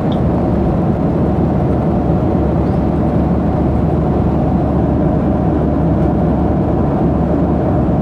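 Cabin noise of a Boeing 737-800 in flight: the steady low rumble of its CFM56-7B engines and airflow, even and unchanging.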